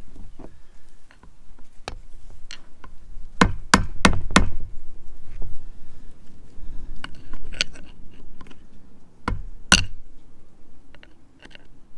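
Hammer striking a screwdriver held against the C-clips on a Toyota driveshaft's U-joint bearing caps to knock them off: sharp metal-on-metal taps, a quick run of four about three and a half seconds in, then single strikes spaced a second or two apart.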